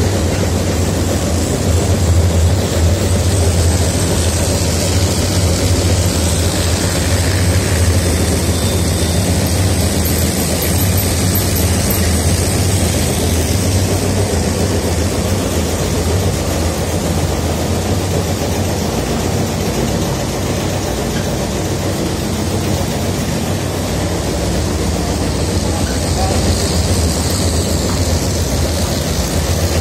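Pouch folding machine running steadily: a constant low hum under an even mechanical noise that holds without a break.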